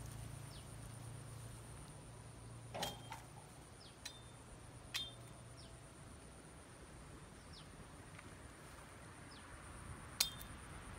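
Machete chopping through fallen branches: about five sharp strikes with a brief metallic ring, two close together about three seconds in and the loudest near the end.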